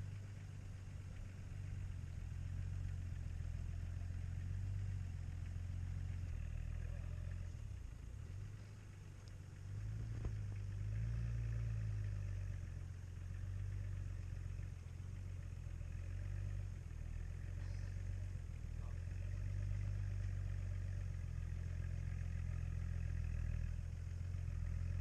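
Off-road 4x4 engine running at low speed, a low drone that rises and falls slightly with the throttle, with a single knock about ten seconds in.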